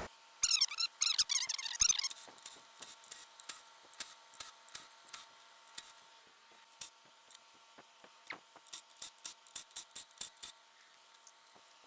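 Cordless ratchet whirring in short trigger bursts for about a second and a half as it backs out 10 mm bolts on a hybrid inverter, followed by a long run of light metallic clicks and ticks, denser near the end.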